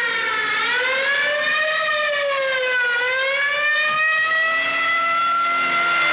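Siren wailing, its pitch slowly falling and rising in long sweeps, ending on a long rise.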